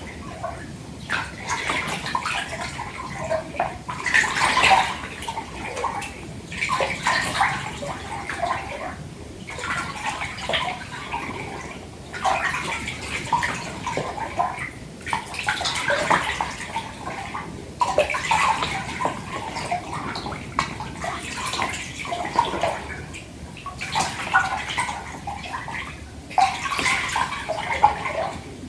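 Water sloshing in a filled bathtub, in irregular swishes and swells that come every second or two, with small splashes and drips between them.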